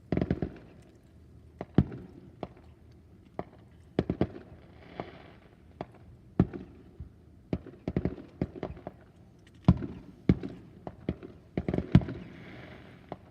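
Aerial fireworks bursting: a long, irregular string of sharp bangs, some in quick clusters. Crackling shells sizzle twice, about five seconds in and again near the end.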